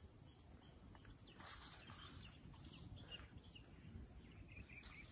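Faint insect trilling, like crickets: one steady, high, rapidly pulsing note that does not change.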